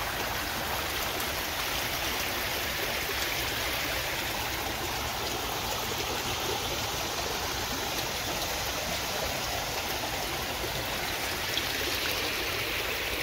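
Shallow creek water running and splashing over rocks and broken concrete slabs, a steady even rush.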